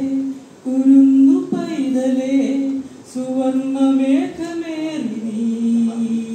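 A man singing a slow song unaccompanied into a microphone, holding long notes and sliding between pitches, in phrases with short breaks for breath.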